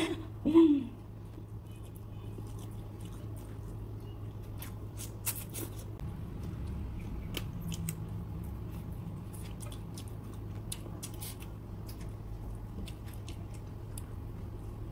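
Close-up eating sounds of chicken adobo and rice eaten by hand: chewing, with scattered wet smacks and clicks as she sucks the bones and her fingers. A brief voiced 'mm' sounds right at the start, and a steady low hum runs underneath.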